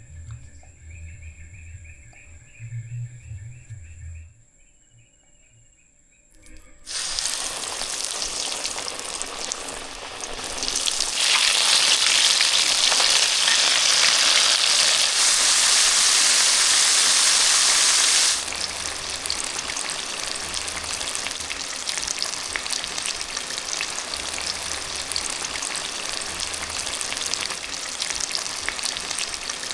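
Heavy rain pouring down. It starts suddenly about seven seconds in, comes down hardest for several seconds in the middle, then settles into a steady downpour.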